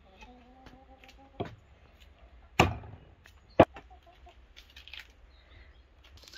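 A hen clucks once, briefly, then come three sharp knocks about a second apart, the middle one the loudest, followed by faint rustling as a pomegranate is pulled apart by hand.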